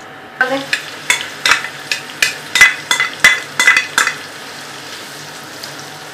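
Sliced onions frying in hot ghee in a karahi, with a metal spoon clinking and scraping against the pan about a dozen times in the first four seconds, then steady sizzling alone.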